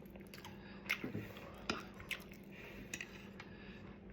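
Faint wet chewing with several soft mouth smacks and clicks at uneven intervals over a low steady hum.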